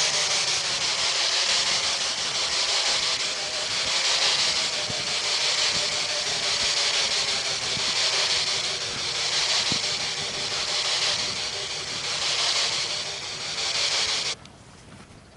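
Loud electronic static hiss that swells and fades every second and a half or so, with faint footsteps on grass beneath it. The hiss cuts off suddenly near the end.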